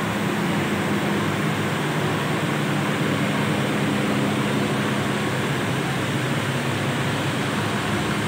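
Parked coach bus running at idle: a steady low engine hum under an even rush of air-conditioning noise.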